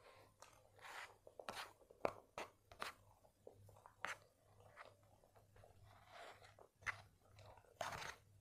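Close-up eating sounds: crunchy kunafa being chewed, with a plastic spoon clicking and scraping on a plastic tray. Sharp, irregular crackles and clicks, a dozen or so, with a longer crackle near the end.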